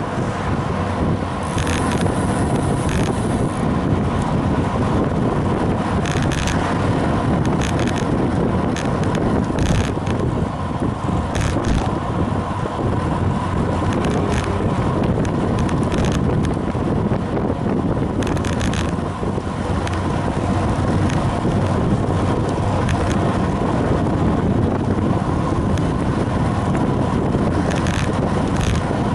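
Wind buffeting the microphone of a camera mounted on a moving road bike, a steady rushing noise mixed with tyre-on-asphalt road noise. Short knocks come through now and then as the bike and camera mount jolt over the road surface.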